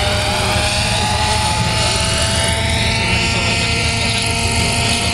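Radio-controlled scale model UH-1B Huey helicopter in flight: a steady motor whine with rotor noise underneath, its pitch drifting slightly as it flies past.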